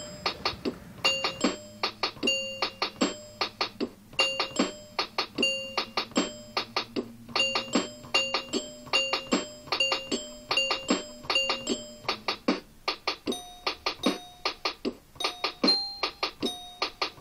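Background music: a bright keyboard tune of short notes over a fast, steady clicking beat, with a low held note under most of it that drops out near the end.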